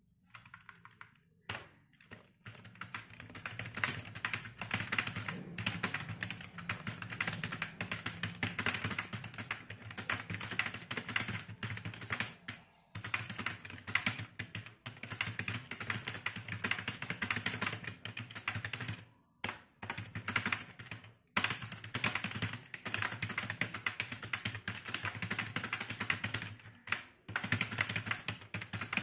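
Fast touch-typing on a full-size external computer keyboard at about 86 words a minute: a rapid, continuous clatter of key clicks that starts a second or two in and breaks for a few brief pauses.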